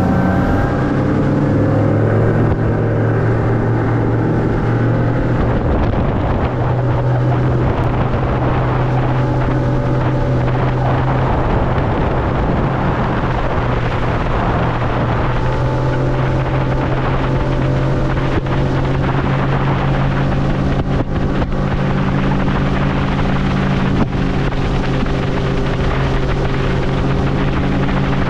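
Bass boat's outboard motor running hard across open water, with the rush of wind and water. The engine note climbs over the first few seconds as the boat gets up to speed, then holds steady at cruising speed.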